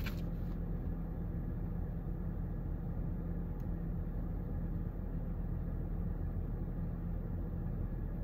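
Steady low hum of a stationary car's running engine heard from inside the cabin.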